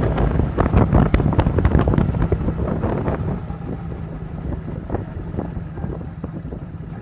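Modified 100cc motorcycle engine running at speed, with heavy wind buffeting on the microphone. About three seconds in, the wind and engine noise ease off, leaving a quieter, steady low engine hum.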